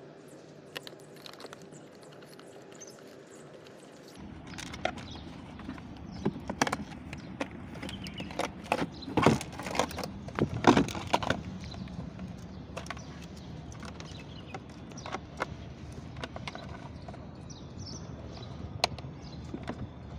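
Irregular clicks, knocks and rattles of hands working plastic dashboard parts and a wiring harness loose from a children's ride-on toy car, sparse at first and busiest and loudest around the middle.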